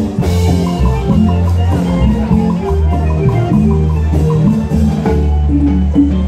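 Loud music from a street musician's electronic keyboard played through loudspeakers: a bright, bouncy melody over a steady repeating bass line.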